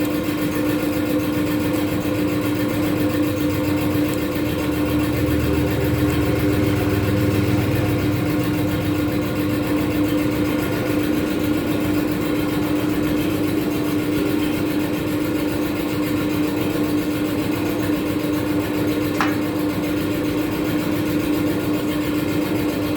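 A machine running steadily: a continuous mechanical hum with a constant pitched drone. The low end swells slightly a few seconds in, and there is one brief click late on.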